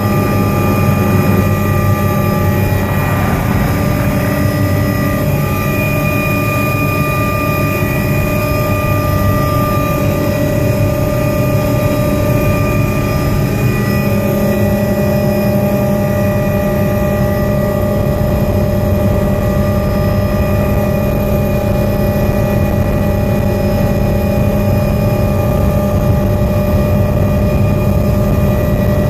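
Helicopter in flight heard from inside the cabin: engine and rotor running steadily, a constant hum with several high whining tones.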